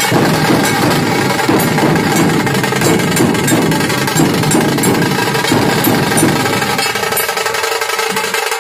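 Loud music with rapid, rattling drumming over a steady tone; the low drumming drops away about seven seconds in.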